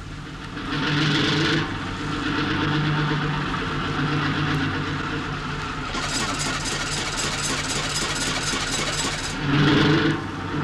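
A boat's inboard engine running with a steady drone. Its exposed valve gear adds a rapid, even mechanical clatter for a few seconds in the middle.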